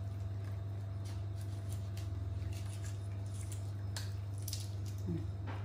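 A steady low electrical hum with faint, scattered small clicks and soft wet squishing from macaques eating and handling dragon fruit; a short voice-like sound near the end.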